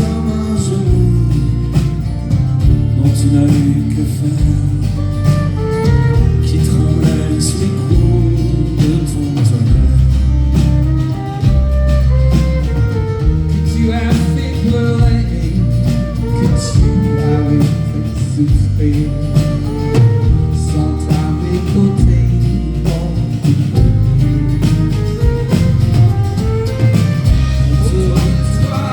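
Live band playing an instrumental passage of a song, with a steady bass line under guitar lines and regular cymbal hits.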